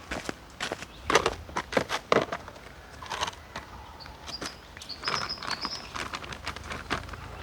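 Irregular rustling and clicking handling noises, with a few short high chirps about halfway through.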